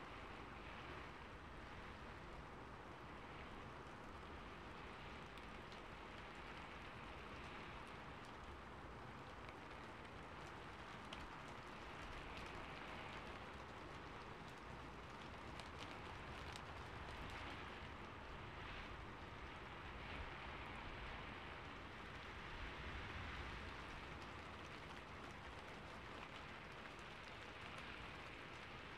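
Quiet, steady rain falling, with a faint patter of individual drops.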